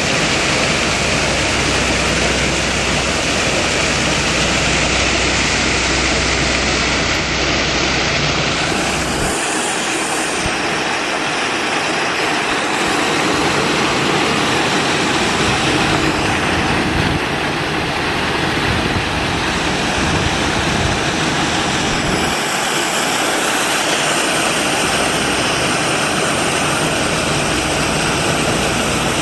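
Steady rushing and splashing of water in a polar bear's pool, churned up as the bear swims and dives.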